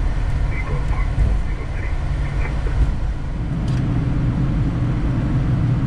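Boeing 787 flight-deck noise: a steady low rumble while the airliner rolls on the runway, changing about three and a half seconds in to the smoother, even hum of airflow and engines in flight.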